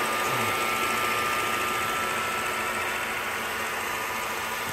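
Keystone R-8 8mm film projector running steadily, its motor and film-advance mechanism making an even mechanical whir with a faint steady high whine. It runs on a freshly lubricated mechanism and a new rubber drive belt.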